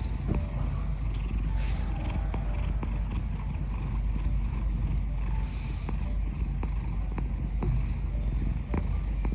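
Ginger domestic cat purring steadily while it is stroked under the chin.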